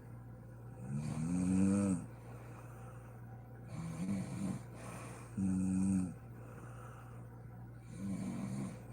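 A sleeping woman snoring: four pitched, buzzing snores, the first rising in pitch and the later ones steadier or fluttery, over a steady low hum.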